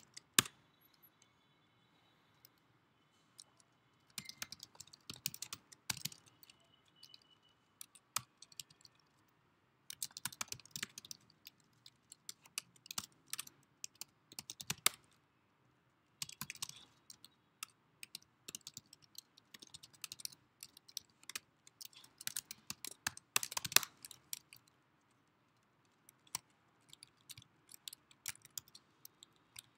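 Typing on a computer keyboard: bursts of quick keystroke clicks with short pauses between them, including a pause of about two seconds near the start.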